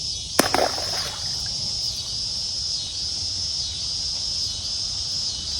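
Insects chirring steadily in a high, evenly pulsing drone, with one sharp click about half a second in.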